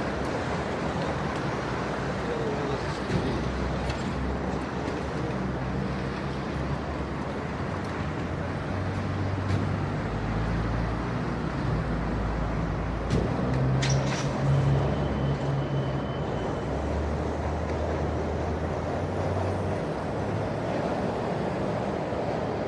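Light city traffic ambience: a steady rumble of passing vehicles, with engine hum swelling and fading as they go by. About two thirds of the way through there is a sharp click followed by a short high squeal.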